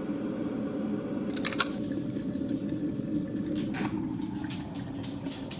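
Kettle of water heating toward the boil, a steady rumbling and bubbling, with a few sharp clicks about a second and a half in and again near four seconds.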